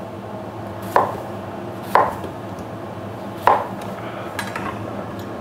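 Kitchen knife slicing a raw potato into rounds on a chopping board: three sharp knocks of the blade hitting the board about a second apart, then a few lighter taps near the end, over a steady low hum.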